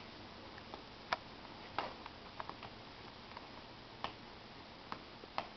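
Faint, irregular clicks and light taps, about six of them a second or so apart, in a quiet room.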